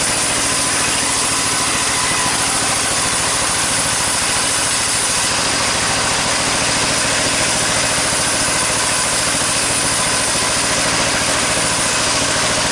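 Sawmill machinery running steadily: an engine with a fast even beat and a dense, loud hiss over it, with no change in pitch or load.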